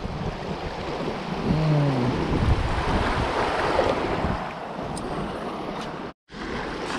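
Small sea waves washing and breaking over a rocky shoreline, with wind buffeting the microphone; the wash swells about three seconds in. The sound cuts out for a moment near the end.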